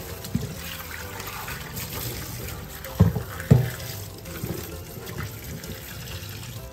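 Tap water running into a glass bowl of dried shiitake mushrooms in a stainless steel sink while hands rub and rinse them. Two dull knocks sound about three seconds in, half a second apart.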